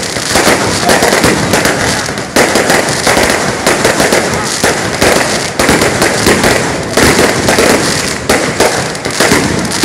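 Firecrackers going off in a rapid, unbroken crackle of loud bangs, like a long string of firecrackers burning through.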